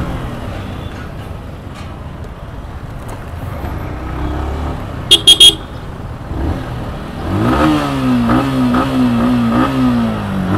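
Motorcycle on the move in traffic: steady road and wind noise, a horn tooting three times quickly about five seconds in, then the engine pulling away with revs rising and holding in the last few seconds.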